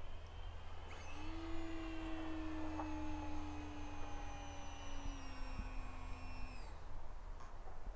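Electric motor and propeller of a Lightning 2100 RC motor glider in flight, a steady whine starting about a second in. Its pitch drifts slowly lower, then dips and stops about a second before the end. A low steady rumble runs underneath.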